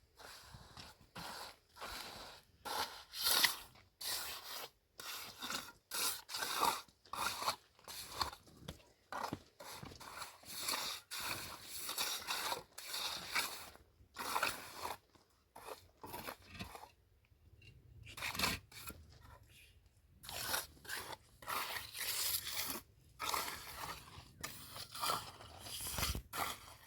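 Repeated scraping and crunching strokes at an irregular pace, several a second, with a short lull about two-thirds of the way through.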